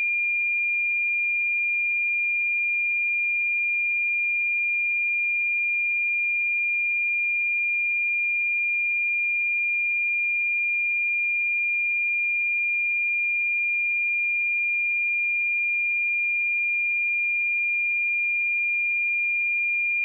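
A steady, pure 2406 Hz sine-wave test tone, one unchanging high-pitched note.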